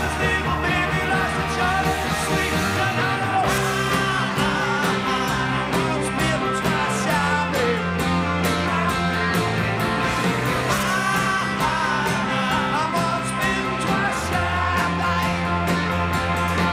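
Live rock band playing: a male lead vocal sung over electric guitars and drums.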